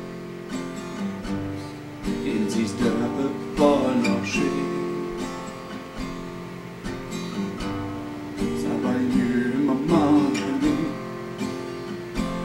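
Acoustic guitar strummed steadily in a slow song, with a man's singing voice coming in twice over the chords.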